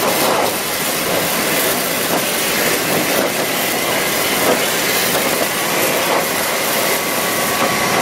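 Electric pressure washer running at full pressure, its water jet hissing steadily against wooden fence boards, with a faint steady whine from the machine under the spray.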